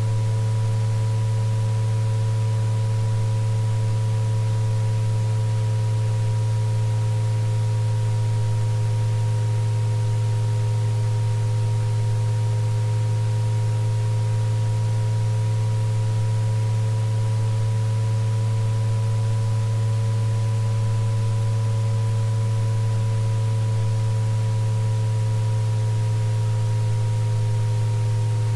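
Electronically generated sine tones of a tinnitus-relief sound track: a loud, steady low hum with several fainter higher tones that drift slowly up and down in pitch, over a faint even hiss.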